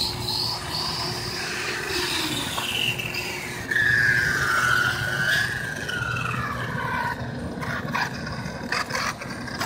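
Redcat Volcano EPX electric RC monster truck driving, its motor and drivetrain whining and gliding up and down in pitch with the throttle. The loudest part is a long falling whine from about four seconds in as the truck slows, followed by a few sharp clicks near the end.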